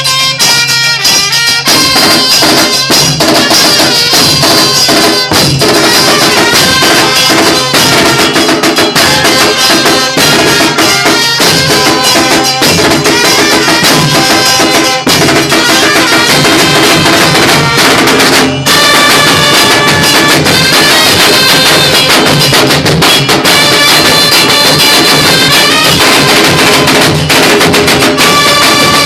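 Band music: a dance track with a steady drum and percussion beat under a held melodic lead, broken by a short pause about eighteen seconds in.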